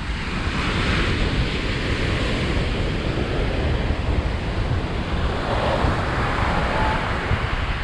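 Ocean surf breaking and washing up the beach, swelling about a second in and again about five seconds in, with wind rumbling on the microphone.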